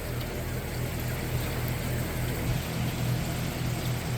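Steady hiss of storm rain with a steady low mechanical hum underneath it.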